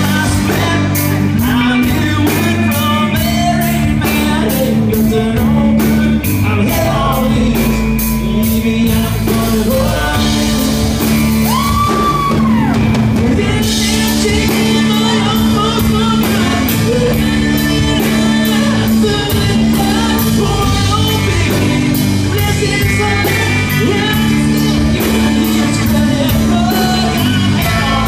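A band playing a rock-style song, with a lead singer over a steady drum beat and sustained bass notes.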